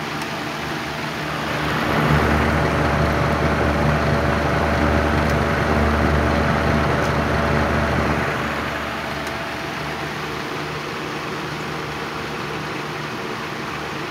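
1980s Patton rotary box fan running on high, a steady whirring drone of blade and motor. About two seconds in it swells louder with a low rumble, holds for about six seconds, then eases back to the steady whir.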